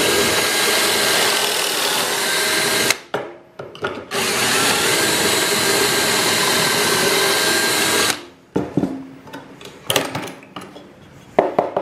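Power drill running fast with a stepped pocket-hole bit, boring two holes through the Kreg Jig R3's guide into a board: two steady drilling runs of about three and four seconds with a short pause between. A few light knocks and clicks follow once the drilling stops.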